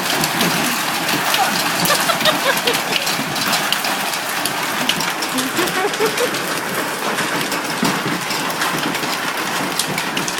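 Hailstorm with heavy rain: hailstones and rain hitting hard surfaces in a dense, rapid clatter of small sharp impacts over a steady hiss.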